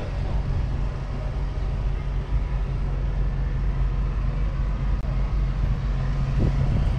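Tractor diesel engine idling steadily, a low even hum with no change in engine speed.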